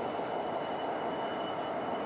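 A Class 66 diesel locomotive dragging a Class 803 electric unit slowly round a curve: steady train running noise with a thin, steady high-pitched whine above it.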